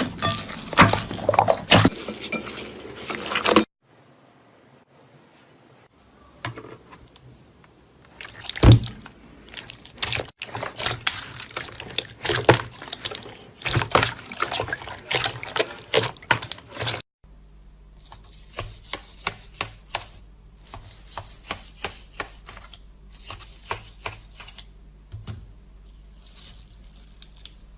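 Slime worked by hand: squeezed, poked and stretched, giving runs of wet, sticky clicks and crackling pops. It comes in several short takes that cut abruptly; the last is quieter and sits over a steady low hum.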